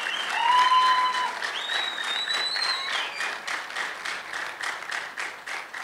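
Audience applauding, dying down toward the end.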